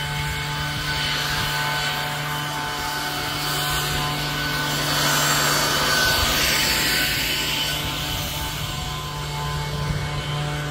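A machine running with a steady hum, and a rushing noise that swells in the middle and fades away.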